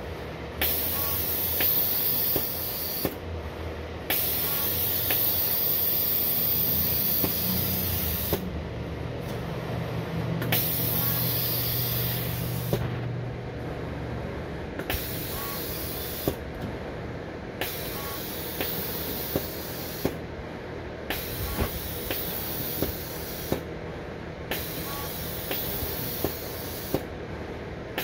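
Manncorp 384v pick-and-place machine running at 40% speed: a steady high air hiss from its pneumatics that cuts out briefly every few seconds, over a low motor hum, with sharp clicks as the head picks and places parts.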